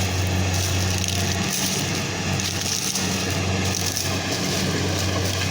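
An engine running steadily at a constant speed, with a dense rushing, crackling noise over it.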